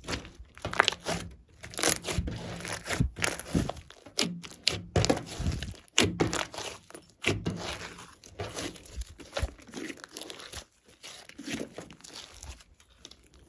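Hands squeezing, stretching and pressing glossy slime with clay and glitter mixed in. It gives a busy, irregular run of sticky crackles and squelches that keeps up throughout.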